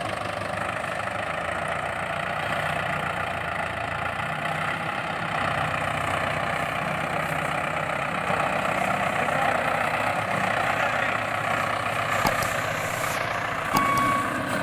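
A vehicle engine running steadily, with reversing beeps starting near the end.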